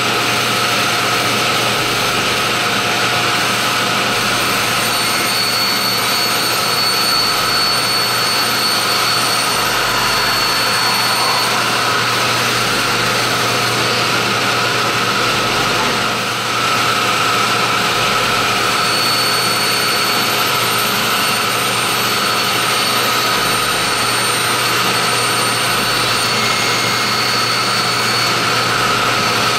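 Table saw running steadily while hollow PVC corbels are pushed through the blade on a plywood sled to trim their edges. The steady noise eases briefly about halfway through.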